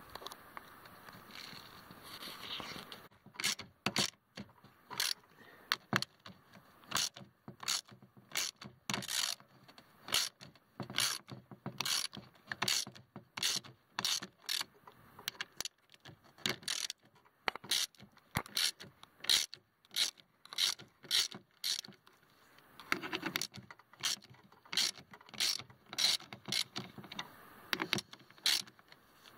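Socket ratchet wrench clicking in quick back-and-forth strokes, about two a second, starting about three seconds in, as it turns the power window motor's mounting bolts.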